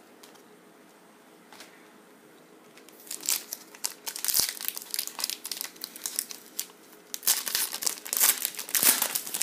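Foil wrapper of a 2013 Rookies & Stars football card pack being torn open by hand, with crinkling and tearing in irregular bursts that start about three seconds in.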